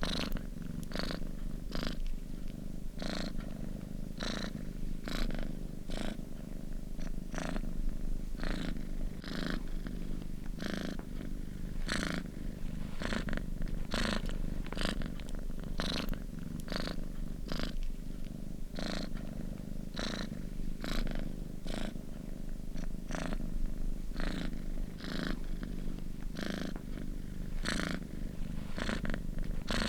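Domestic cat purring steadily, close up, in a regular pulsing rhythm of a little under two pulses a second.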